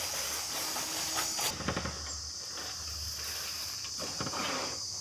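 Steady high-pitched insect buzz, which stops about a second and a half in, with faint rustling and handling noises underneath.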